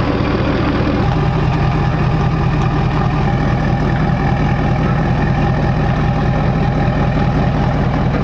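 Ford Super Duty pickup's engine idling steadily as the truck reverses slowly toward the trailer hitch.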